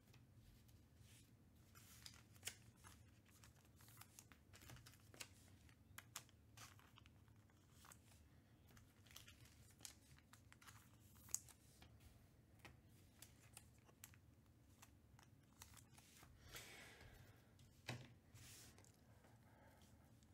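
Faint handling of trading cards and a card pack: scattered light clicks and ticks, with a crinkling, tearing rustle of a pack wrapper about sixteen to nineteen seconds in.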